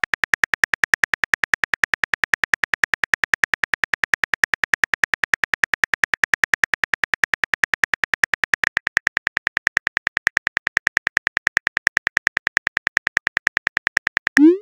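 Synthetic phone-keyboard typing clicks from a texting-story app, a fast even train of about seven taps a second as a message is typed out. A short rising swoosh comes in at the very end.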